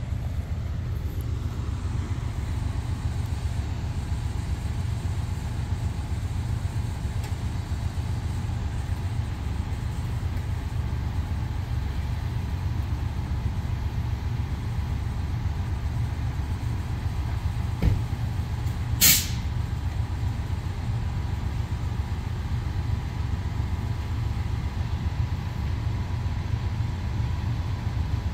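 Amtrak Downeaster passenger train standing with its P42DC diesel locomotive idling: a steady low rumble. About two-thirds of the way through there is a brief knock, and then a short sharp hiss of released air.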